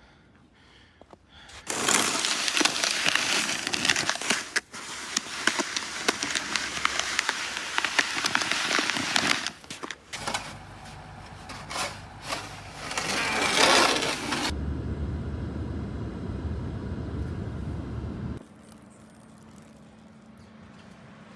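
Snow being cut through and pushed, with dense crunching and scraping full of sharp cracks for about twelve seconds. It then gives way to a low rumble that stops about four seconds later.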